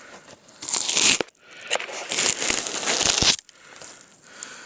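Crinkling and rustling of material being handled, in two bursts: a short one about half a second in and a longer one from about two to three and a half seconds.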